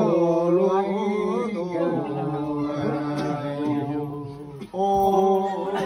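A chanted mantra sung in long held, slowly wavering notes over a steady low drone. It breaks off briefly near the end, then resumes on a new held note.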